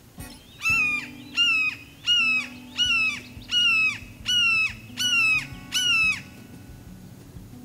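Red-shouldered hawk calling: a loud run of eight kee-ah calls, evenly spaced and each dropping in pitch at its end.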